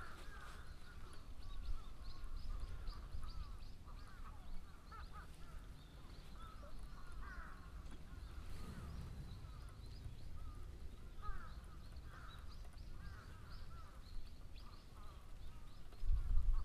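Birds calling continuously, with many short calls overlapping, over a low rumble. A dull thump comes near the end.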